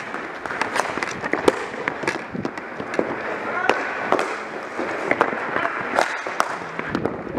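Ball hockey play: a rapid, irregular series of sharp clacks and cracks from sticks striking each other and the ball, and the ball hitting the boards.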